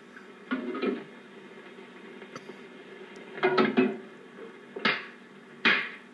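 Several short clatters of kitchen ware, a ladle in a pot and metal plates, on an old film soundtrack heard through a TV speaker. There are four separate sounds: one about half a second in, one about three and a half seconds in, and two short hissy ones near the end.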